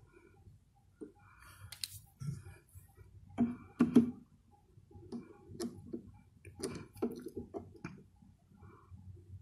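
Small clicks and knocks of a precision screwdriver turning the bearing screw on a turntable tonearm's pivot, with light handling of the metal arm. Two louder knocks come about three and a half and four seconds in.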